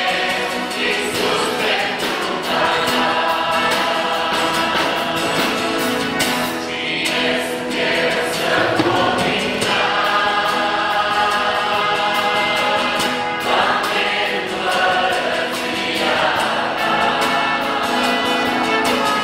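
Church youth choir of mostly young women's voices singing a worship song together, with a steadily strummed guitar keeping the rhythm underneath.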